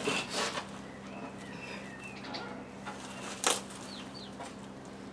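Faint handling noises as a black panel is worked inside its cardboard and plastic packaging, with one sharp knock about three and a half seconds in. Small birds chirp briefly in the background.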